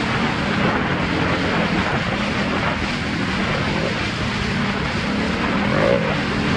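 ATV engine running steadily under way, its pitch drifting only slightly, over a steady rush of wind noise on the microphone.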